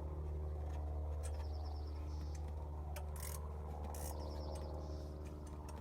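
Socket ratchet clicking in two quick runs as a nut on the wastegate is worked, with a couple of sharp metal clicks between them. A steady low hum runs underneath.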